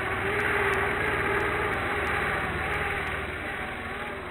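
AH-64 Apache scale RC helicopter in flight: a steady motor and rotor sound with a held tone, slowly getting quieter.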